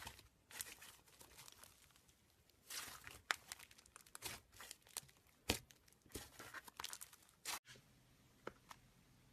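Slime being worked by hand close to the microphone, giving irregular crackles, snaps and small pops. About three quarters of the way through, the sound cuts off abruptly, and only a few faint clicks follow.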